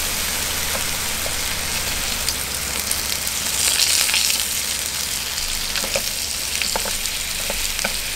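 Thin pork slices sizzling on a hot grill plate, a steady hiss that swells louder about four seconds in, with light clicks of wooden chopsticks against the pan.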